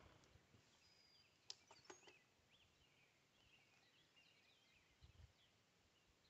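Near silence in the open air, with faint distant bird chirps and a few light clicks.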